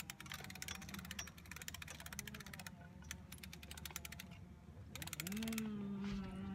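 Patio umbrella's crank mechanism being wound: a rapid run of ratchet clicks for about two and a half seconds, and another short run about five seconds in. A steady low hum-like tone follows near the end and is the loudest sound.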